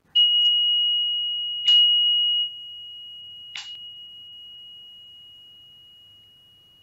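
A high-pitched meditation chime struck three times, at the very start, about a second and a half in and again about two seconds later. It rings one pure, steady tone that fades slowly; the third strike is softer.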